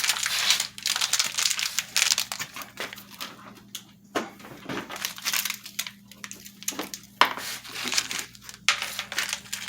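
Hands handling parts while fitting an LED turn-signal bulb and its load resistor: irregular crinkling and rustling with a few sharp clicks.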